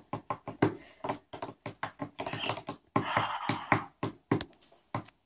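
Fingertips tapping quickly and irregularly on a tabletop, faking the clatter of a computer keyboard so it sounds like a bank clerk looking something up in the system.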